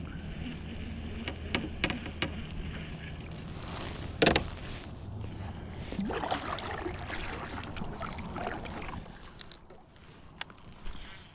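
Water sloshing and gurgling against a kayak hull, with scattered small clicks and one sharp knock about four seconds in. A busier stretch of water and handling noise follows, and it settles quieter near the end.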